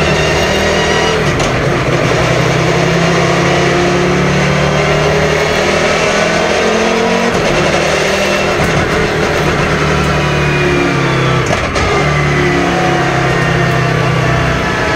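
Volvo 850 BTCC race car's naturally aspirated 2-litre five-cylinder engine running hard on track, its pitch climbing and dropping as it accelerates. Brief sharp breaks come about a second in and again about three-quarters of the way through.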